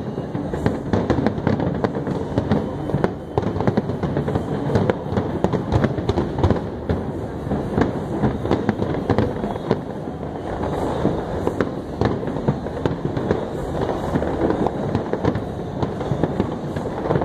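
Fireworks display: a dense, continuous barrage of bursting shells, with many sharp cracks and bangs over a steady rumble.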